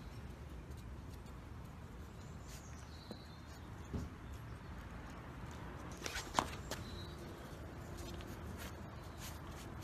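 Quiet outdoor background noise with a low rumble and a few scattered soft taps and clicks, the sharpest about six seconds in.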